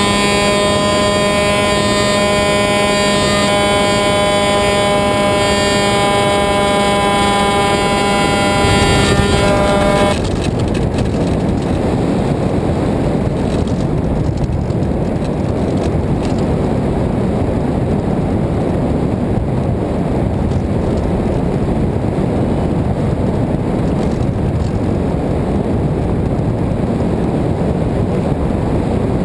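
Electric motor and propeller of an F5J electric thermal glider running steadily under power in the climb, a steady whine, until the motor cuts off about ten seconds in. After that only wind rushes over the onboard camera as the glider glides.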